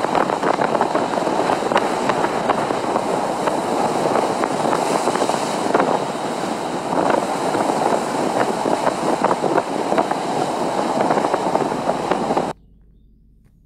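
Sea waves washing and splashing over low shore rocks: a steady rushing noise with frequent small splashes, cutting off suddenly near the end.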